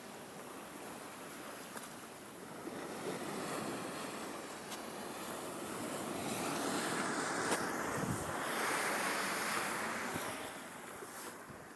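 Ocean waves washing up onto the shore: a rush of surf builds through the first half, is loudest about two-thirds of the way in, then ebbs away.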